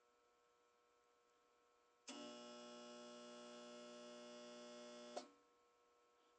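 Whirlpool ACQ122XK0 window air conditioner's compressor trying to start: a loud electrical hum-buzz comes on suddenly about two seconds in, holds for about three seconds and cuts off with a click, the compressor failing to kick on. A faint low hum from the unit runs underneath, with no fan running.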